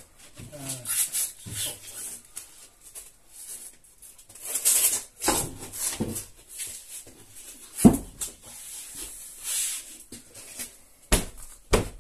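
A sheet of plasterboard being pushed and pressed flat against a wall by hand, with irregular scuffing and rubbing and a few sharp knocks, the loudest about eight seconds in and two close together near the end.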